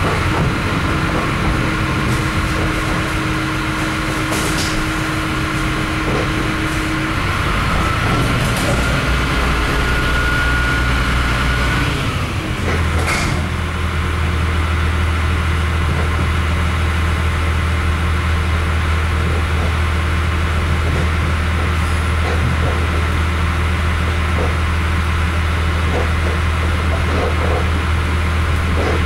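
Interior running noise of an RA2 diesel railbus under way: a steady diesel drone mixed with wheel and rail noise. About twelve seconds in the engine note changes and a thin high whine stops, after which a steady low drone holds.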